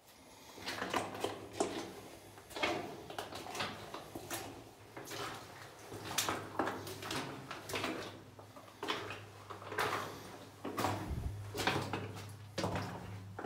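Footsteps crunching and scraping on the rock-and-gravel floor of a mine tunnel, roughly one or two a second, over a steady low hum.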